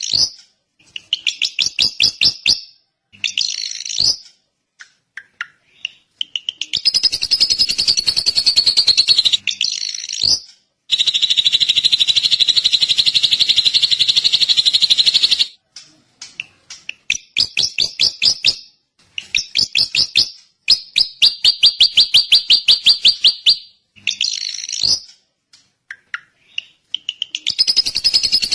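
Drongo singing: bursts of quick high chirps alternating with long, very rapid trills that run on for several seconds, separated by short pauses.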